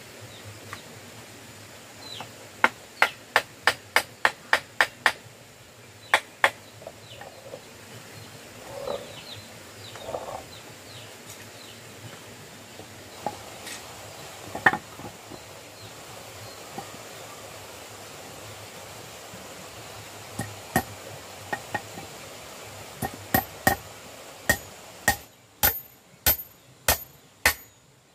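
Hammering: sharp knocks, first a quick run of about seven blows, then a few scattered single blows, then another run of blows near the end.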